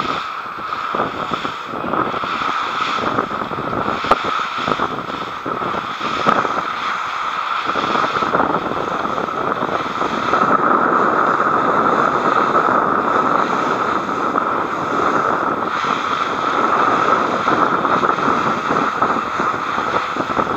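Boat running fast over open sea: a steady rush of wind on the housed action camera's microphone and the motor's drone, with the hull slapping irregularly on the waves and spray from the bow wave.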